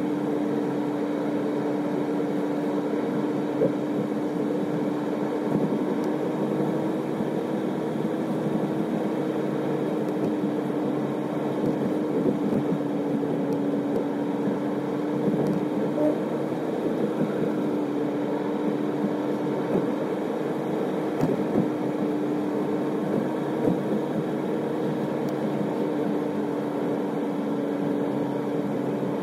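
Car driving at a steady speed: a constant engine drone with an even hum of tyre and road noise, unchanging throughout.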